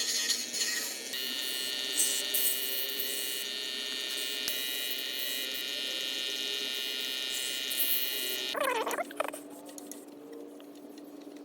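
Wood lathe motor running with a steady whine. About eight and a half seconds in the pitch sweeps and the sound drops to a quieter steady hum.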